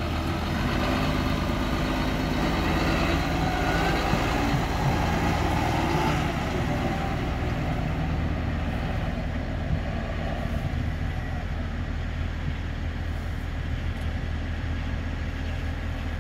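John Deere 6820 tractor's six-cylinder diesel engine running steadily as the tractor drives off across grass, becoming a little quieter after about six seconds as it moves away.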